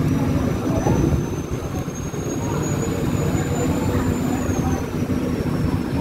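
Boat engine droning steadily under the rush of wind and water, with a faint high whine that slowly rises and falls in pitch.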